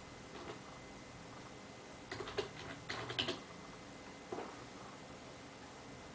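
Computer keyboard typing: two quick runs of key clicks about two seconds in, then one more click a second later.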